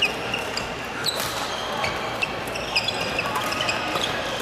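Badminton doubles rally: sharp racket hits on the shuttlecock and sneakers squeaking in short chirps on the court floor, over the general hubbub of a large gym hall with other courts in play.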